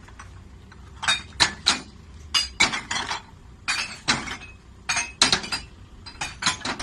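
Glass bottles dropped one after another into a glass recycling bottle bank, each landing with a sharp glassy clink against the glass inside; a dozen or so clinks come in quick clusters.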